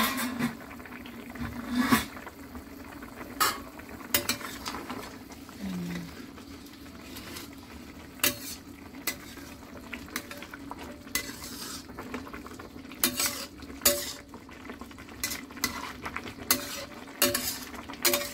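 Metal ladle clinking and scraping against a steel wok as it stirs a simmering braise of pork and preserved vegetables. The clinks come at irregular moments over a steady low hum.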